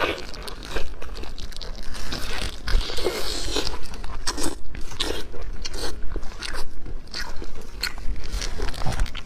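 Close-miked crunchy biting and chewing of food: a run of irregular crisp crunches and clicks.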